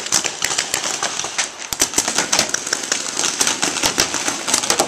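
Paintball markers firing rapid, irregular strings of shots, many sharp pops close together throughout.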